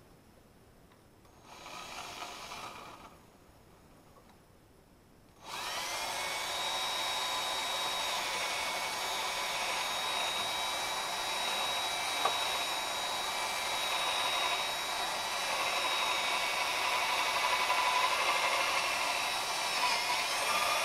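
Electric drill starting about five seconds in and running steadily with a high motor whine, drilling a hole; a brief fainter sound comes shortly before it.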